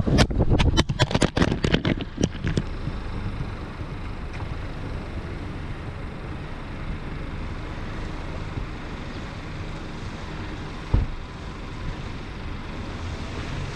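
A GoPro action camera that has come off its car mount, clattering and tumbling on the road in a quick run of hard knocks for the first two seconds or so. Then a steady rumble of road traffic, with a single thump about eleven seconds in.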